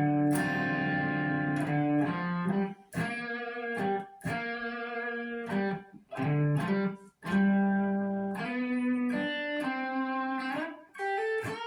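Electric guitar playing a chordal rhythm riff through an amp. Each chord is struck and left to ring, and the phrases are broken by short gaps.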